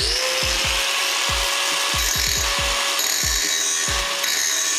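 Electric angle grinder that spins up at the start and then grinds the edge of an aluminium radiator, a steady motor whine over a hissing grind. The metal is being trimmed so the radiator will line up in its mounts.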